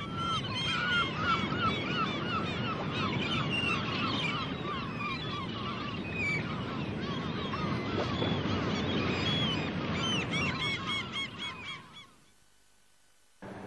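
A large flock of birds calling over one another, many short calls in quick succession, over a steady rushing noise. The calling fades out about twelve seconds in.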